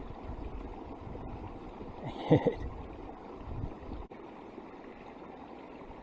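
Steady rushing of moving water. About two seconds in, a short, loud sound with a bending pitch cuts in briefly, much like a voice.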